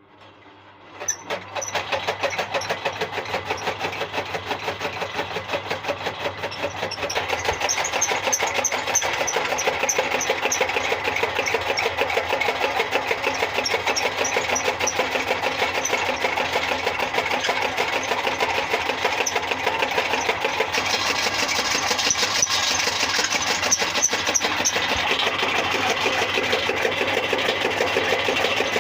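Motor-driven chaff cutter starting up about a second in, then running with a fast, steady mechanical clatter.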